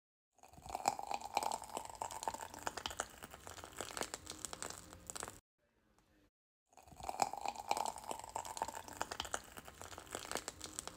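Plastic piping bag crinkling as it is squeezed, with soft crackling as whipped body butter is piped into a jar, in two stretches with a short pause in between.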